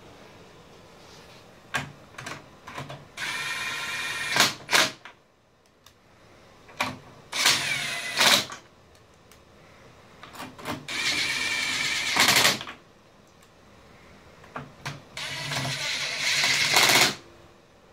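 Ridgid brushless cordless driver running in four bolts, four separate runs of one to two seconds each. Short clicks and knocks from handling the tool and bolts come between the runs.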